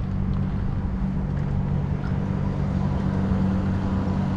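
An engine idling steadily nearby, a constant low drone that neither rises nor falls.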